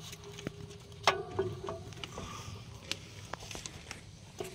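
Scattered sharp metallic clicks and clinks, about half a dozen, as a clutch pressure plate is handled and turned against the flywheel, metal knocking on metal.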